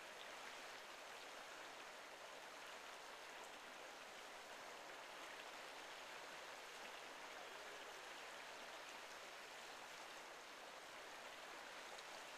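Faint, steady rush of a river spilling over a small weir or step of shallow rapids.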